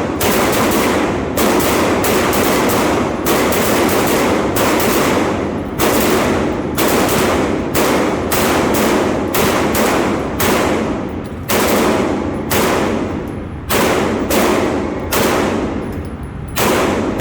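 Glock 9mm pistol being fired over and over, roughly one to two shots a second at an uneven pace, each sharp crack followed by a short echoing tail.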